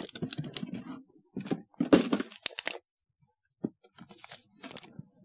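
Brown kraft-paper packaging being handled: rustling, scraping and sharp crackles in several bursts, with a short pause about three seconds in.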